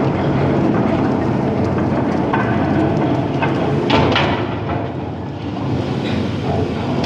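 An engine running steadily, with sharp metallic clanks and knocks, the loudest about four seconds in.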